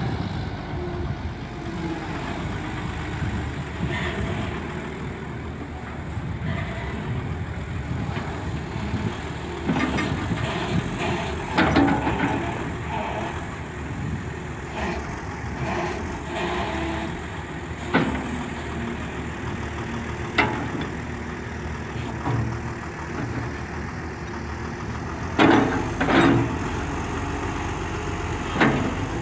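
Volvo EW145B wheeled excavator's diesel engine running steadily while the boom and arm are worked through test operations, with several sharp knocks scattered through, the loudest near the end.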